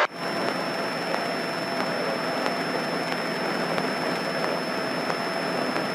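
Steady cockpit drone of a single-engine propeller airplane's engine and propeller in cruising flight, with a thin steady high whine over it.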